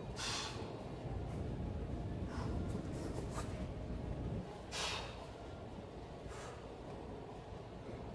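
A person breathing hard while exercising: several short, sharp breaths at uneven spacing, over a low rumble that drops away about four and a half seconds in.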